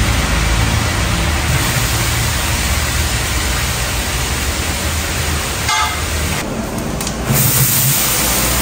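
Green chillies, coriander and mint sizzling steadily in hot oil in a large biryani pot over a wood fire, with a low rumble underneath. A brief rattle comes about six seconds in.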